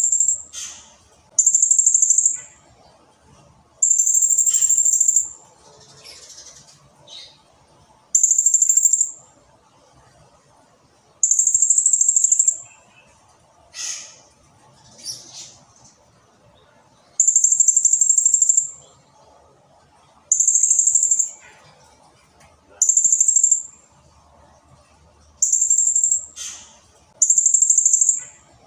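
Blue-crowned hanging parrot (serindit) singing in long, shrill, very high trilled bursts of about a second each, repeated every two to three seconds, with fainter short chirps between them.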